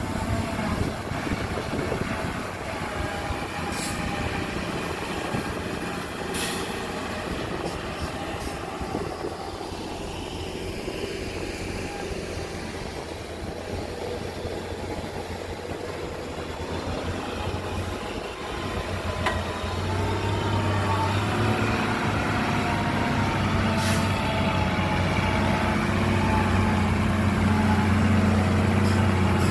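Heavy diesel engines of dump trucks and earth-moving machinery running steadily, growing louder about two-thirds of the way through, with a few brief sharp sounds.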